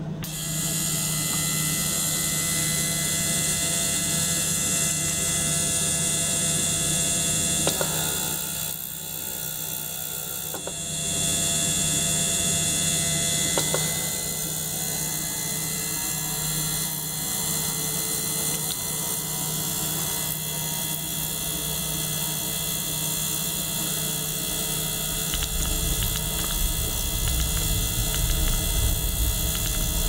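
A small ultrasonic cleaner and a small pump circulating liquid through it run together, giving a steady hum with hiss over it. The sound turns briefly quieter about nine to eleven seconds in, and a low rumble rises near the end.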